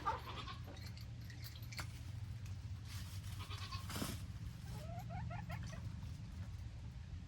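Goats bleating in short calls, one at the very start and a quick cluster of calls about five seconds in, over a steady low hum.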